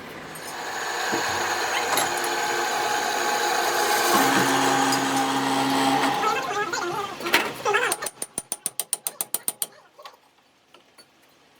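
Steady mechanical running noise with a low hum, then a quick run of ratchet-like metal clicks, about nine a second, for under two seconds.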